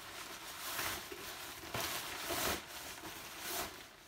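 Nylon backpack rain cover rustling and crinkling as it is stuffed into a nylon stuff sack, in several swells.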